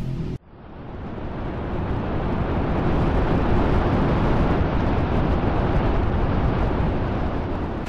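Spacecraft engine rumble sound effect: a steady, noisy rumble that fades in over the first couple of seconds and then holds.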